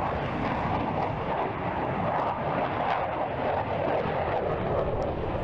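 A MiG-29 fighter's twin jet engines at high power: a loud, steady jet roar with no rise or fall.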